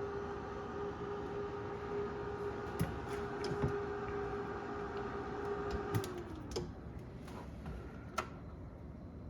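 Refrigerator fan motor running with a steady hum, then spinning down about six seconds in, its pitch falling as it stops. A few light clicks and knocks are scattered through it.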